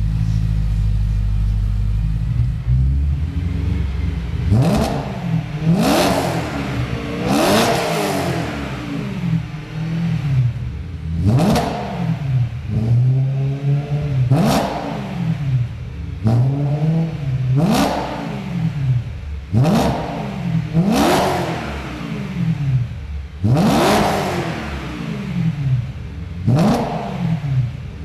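BMW E92 M3's 4.0-litre V8 through a Fabspeed aftermarket exhaust with high-flow cats and an X-pipe, idling steadily for about four seconds and then blipped about a dozen times, each rev rising sharply and dropping back to idle.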